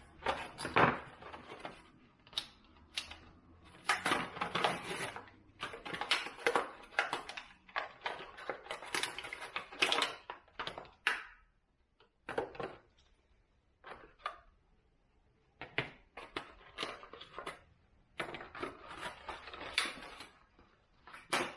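Small items being handled on a bench: irregular crinkling and scraping with sharp clicks, typical of plastic packaging being worked open, with a couple of short pauses.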